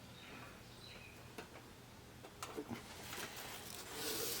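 Backing of 3M adhesive tape on an LED backlight strip being peeled off slowly, a faint crackling hiss that grows louder near the end, with a few light clicks of handling.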